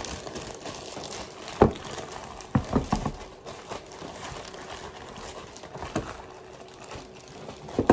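Thin plastic food-handling gloves rustling as they are pulled onto the hands, with a few sharp knocks: one about a second and a half in, a quick cluster of three about a second later, and a lighter one near the end.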